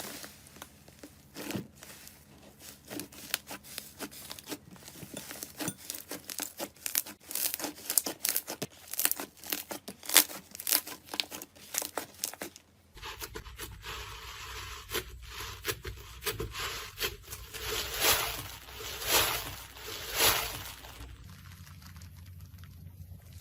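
Slime being worked by hand: a dense run of small crackles and pops, then, after a cut about halfway through, slower squelching swells over a low hum.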